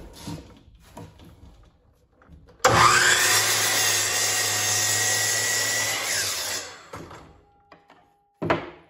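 Hercules 12-inch sliding miter saw spinning up with a rising whine and cutting through a piece of construction lumber. The motor winds down after about four seconds, and it runs on a shared 15-amp circuit without tripping the breaker. Light knocks of the board being set in place come before the cut, and a short knock near the end as the cut wood is handled.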